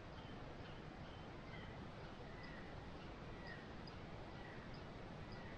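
Faint outdoor ambience: a steady background hiss, with a small bird giving short high chirps about once a second.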